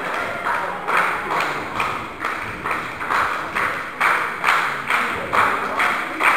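Small audience clapping in unison, a steady beat of about two claps a second.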